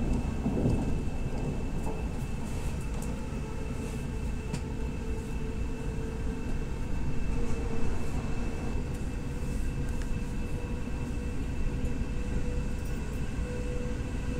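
Passenger train running along the track, heard from inside the carriage: a steady low rumble of wheels on rail with a couple of faint steady whining tones above it. It grows briefly louder about eight seconds in.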